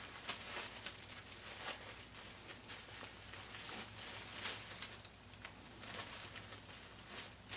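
Faint rustling and soft scattered handling noises as hands move and pose a silicone baby doll's limbs on tissue paper and bedding.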